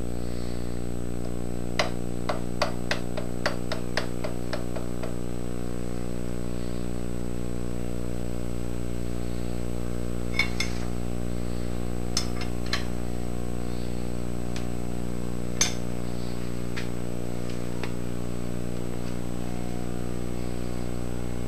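Light metallic clicks, about three a second for a few seconds, then a few scattered clinks, as a wrench is worked on the mill vise's hold-down bolt to snug it lightly. A steady electrical hum runs underneath.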